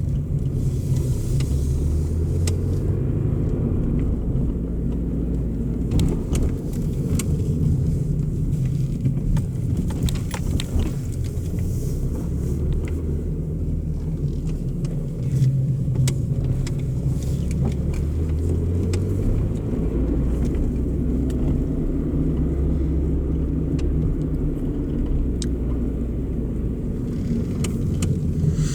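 Chrysler PT Cruiser's 2.0-litre four-cylinder engine running through a new muffler: a steady low exhaust rumble that shifts in pitch a few times as the revs change.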